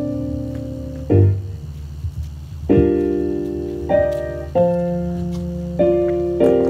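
Keyboard playing slow, held chords, a new chord struck about every second or so and left to ring.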